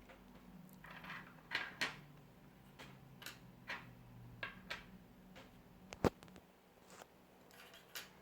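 Plastic parts of a BMW iDrive controller being handled and fitted by hand: scattered light clicks and taps, with one sharp click about six seconds in.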